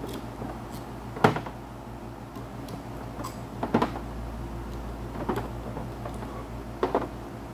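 Small metal rocker-arm parts clinking and tapping as they are handled and set down on a workbench: a handful of sharp, separate clinks about a second and a half apart, over a steady low hum.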